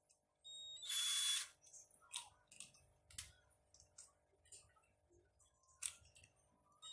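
Cordless drill motor run briefly, about a second of steady whine near the start, followed by scattered clicks and small knocks of the tool being handled.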